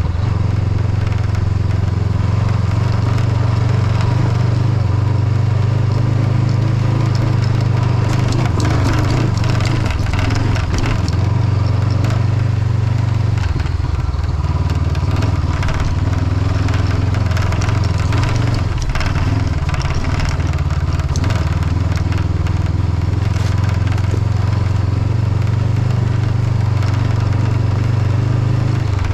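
Honda CB500X parallel-twin engine running steadily while riding, with tyres crunching over a gravel road. Over it a loose windshield rattles and clicks, because a screw holding it is missing.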